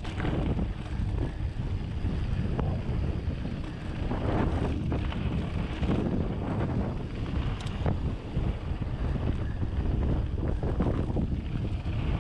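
Wind buffeting the microphone over the crunch and rattle of a Rocky Mountain Instinct mountain bike's tyres rolling fast down a loose gravel trail, with scattered small knocks as it runs over stones.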